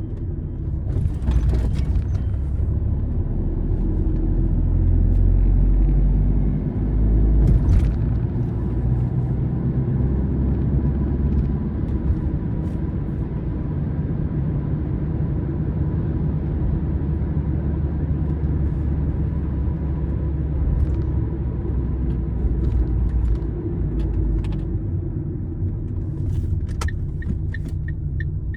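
A car driving on the highway: a steady low rumble of engine and tyre noise on the road. There are a few brief clicks, and a quick run of regular clicks near the end.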